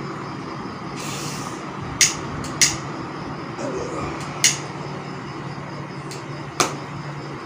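A steady low hum, with four sharp clicks spread over the seconds, two close together about two seconds in and single ones later, plus a short hiss about a second in.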